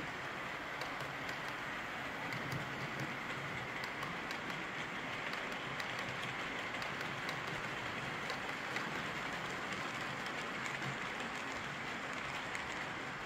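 OO gauge model trains running past on the track: a steady rolling noise from metal wheels on the rails, with a low hum and scattered small clicks at the rail joints and points.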